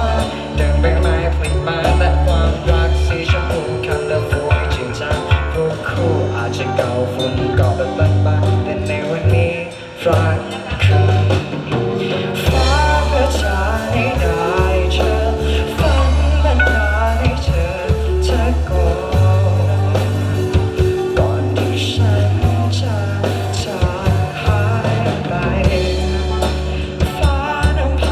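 Marching band playing a pop song arrangement: long held chords over a deep, sustained bass line, with drum strikes throughout and a brief dip in the music about ten seconds in.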